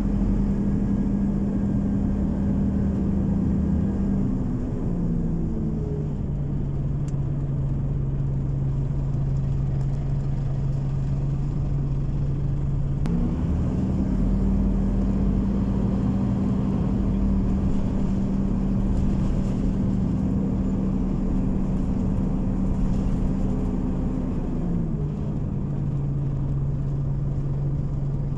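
Interior sound of a Scania OmniCity city bus under way: a steady engine hum over a low road rumble. Its pitch drops about five seconds in, rises again near the middle, and drops once more near the end.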